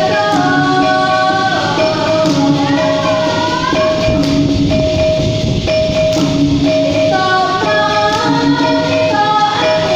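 Dikir barat: a female lead singer singing through a microphone over a steady percussion beat, with a short break in her voice about halfway through while the beat carries on.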